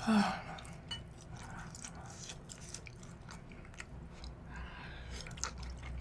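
Close-miked chewing of grilled beef intestines, with many small wet mouth clicks. It opens with a short hum of the voice, falling in pitch.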